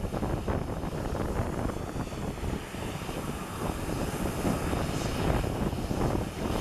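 Steam-hauled heritage train hauled by BR Standard Class 4 2-6-4T no. 80136, heard from an open carriage window as it runs at speed: a steady rumble of the coaches on the track mixed with wind buffeting the microphone.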